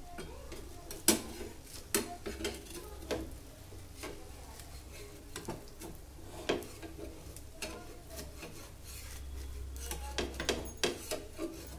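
Steel spatula scraping and tapping against a dosa pan while spreading egg over the cooking dosa, in irregular clicks and scrapes.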